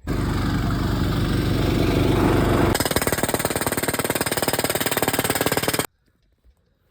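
Pneumatic air hammer driving fence posts into rocky ground: fast, continuous hammering over a running engine. The blows become evenly spaced about three seconds in, and the sound stops suddenly near the end.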